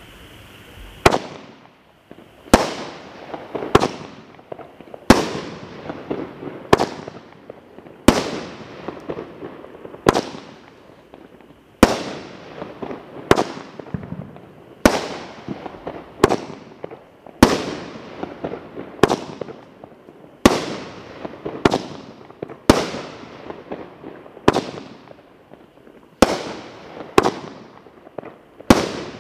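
Cutting Edge "Unleash the Power" consumer firework cake firing shot after shot, about twenty sharp bangs spaced every one to two seconds. Each bang trails off in a fading tail.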